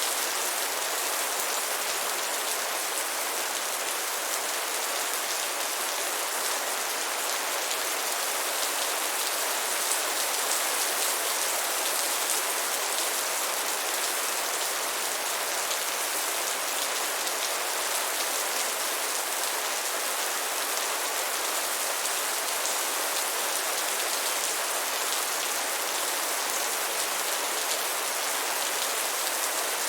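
Steady rain falling, an even hiss of many drops with no change in strength and no thunder.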